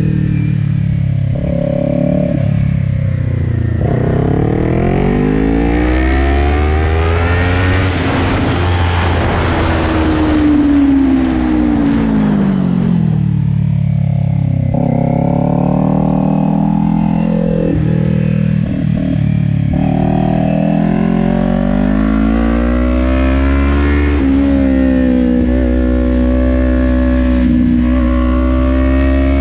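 Kawasaki Ninja 400's parallel-twin engine heard from the rider's seat, revving up through the gears, falling back in pitch as the bike slows for turns, then climbing again with brief breaks at the gear changes and holding steadier near the end.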